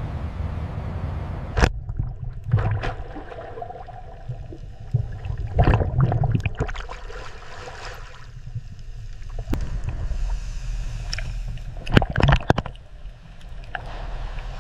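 Water sloshing and gurgling with several sharp knocks and splashes, the loudest a cluster near the end, over a steady low hum.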